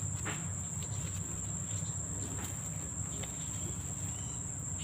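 A steady, high-pitched insect trill runs without a break over a low rumble, with a few faint rustles as the camera brushes through the foliage.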